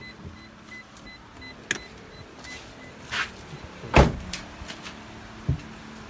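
Perodua Alza with an aftermarket keyless smart alarm: a rapid electronic beep repeats about three times a second for the first few seconds, with clicks, then a loud thump about four seconds in and a smaller thump near the end, over a low steady hum.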